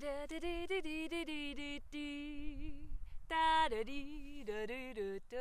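A woman singing alone, unaccompanied: two short phrases of held, wavering notes, the second phrase starting louder about three seconds in.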